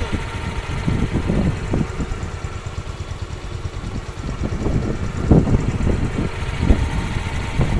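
Motorcycle engine running while riding, with wind rushing and buffeting over the microphone in irregular gusts.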